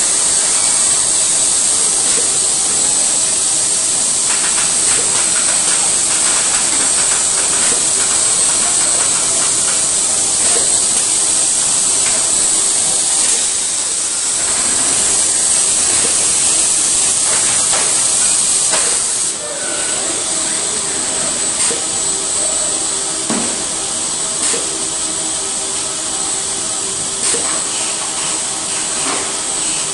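Robotic car-body assembly line running: a loud, steady hiss with a faint machine hum underneath and a few scattered clicks and clanks.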